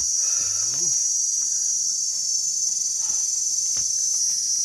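Steady, high-pitched drone of a forest insect chorus, with a few faint taps.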